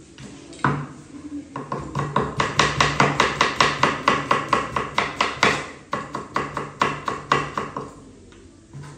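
Kitchen knife chopping a tomato on a wooden cutting board: rapid, even strokes of the blade knocking the board, about six a second, with a short break about two-thirds of the way through.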